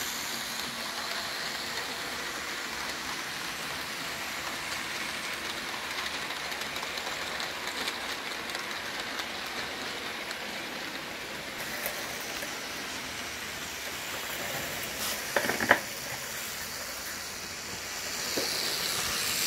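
Rivarossi Mallet 0-4-4-0 model locomotive and its train of wagons running steadily at full speed on the track, a smooth even whirr from the motor and wheels, not too noisy, its motor freshly fitted with new brushes. A sharp click about three-quarters of the way through.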